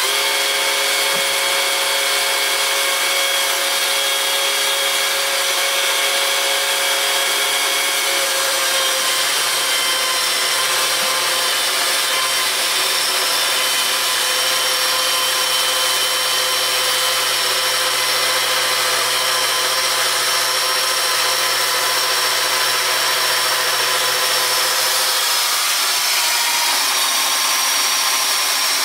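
Electric chainsaw mill on automatic feed ripping lengthwise through a log. It runs loud and steady with a whine that shifts pitch about eight seconds in and again near the end.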